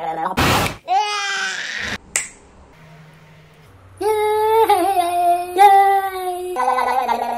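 A sharp snap-like burst, then a short vocal cry. After about two seconds of quiet comes a long, high-pitched, wavering wail from a man pulling a crying face, with a lower voice near the end.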